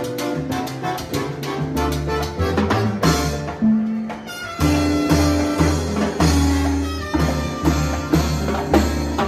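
Live salsa orchestra playing: brass (trumpets and trombones) over congas, timbales, bongó and a driving bass line. Partway through there is a brief break where the percussion drops out, then the full band comes back in.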